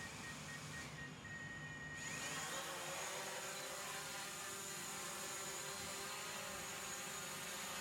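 Small electric motor whirring: it spins up about two seconds in, then runs steadily at a high, even pitch.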